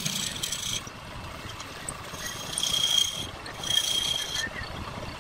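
Turning chisel cutting a spinning wooden spindle on a lathe: a hissing scrape with a thin high tone, in three passes (at the start, about two seconds in, and near four seconds), with the lathe running steadily between them.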